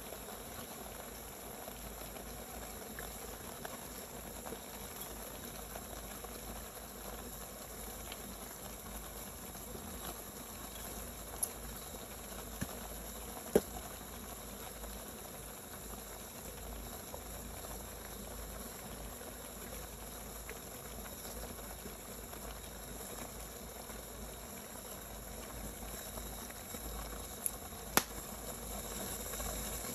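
Pot of food simmering, a steady bubbling, with a few sharp clicks: three close together about halfway through and two near the end.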